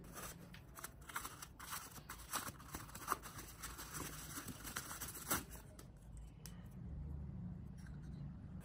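Tissue wrapping paper rustling and crinkling as small kit parts are unwrapped and handled, with sharp clicks of plastic and metal parts, loudest about three and five seconds in. The rustling dies away near the end, leaving a low hum.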